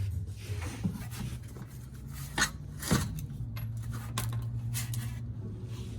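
Hand tools clinking and scraping on metal during work on a car, with scattered sharp knocks, two louder ones a little past the middle, over a low steady hum.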